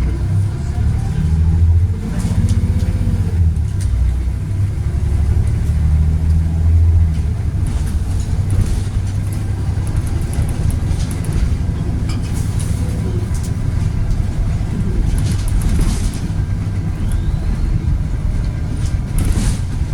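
Volvo B7RLE bus with a Voith automatic gearbox heard from on board: a low engine drone, heaviest for the first several seconds and then steadier. A brief rising whine comes a few seconds in, and short rattles and clicks come now and then.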